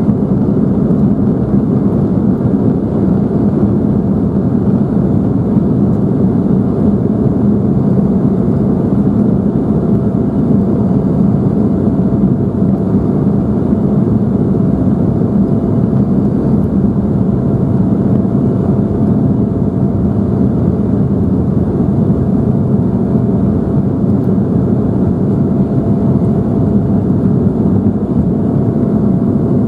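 Embraer 175 cabin noise in flight: the twin turbofans and airflow give a loud, steady rush with a faint constant whine above it.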